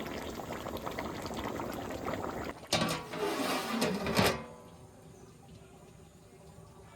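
Tuna-head curry bubbling in a pot. About three seconds in comes a louder clattering, scraping burst lasting a second and a half, as the pot is covered. After that the bubbling goes on much more quietly, muffled under the lid.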